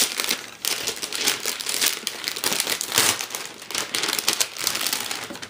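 Wrapping paper being ripped and crumpled by hand as a present is unwrapped: a dense, irregular run of crinkling and tearing.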